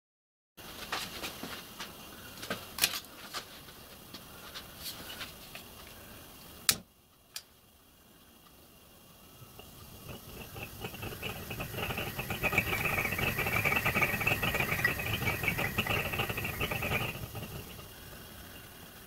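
A few sharp clicks and knocks, then a multi-jet gas burner for a 5-inch gauge miniature steam locomotive burning on butane: a rushing hiss that builds as the gas valve is opened, holds, and drops suddenly near the end as the valve is turned down.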